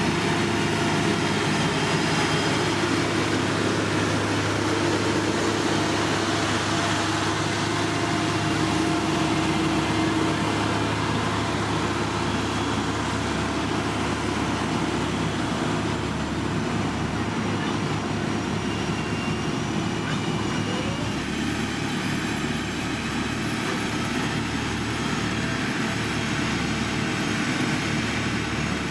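Diesel engines of heavy road-building machinery running steadily.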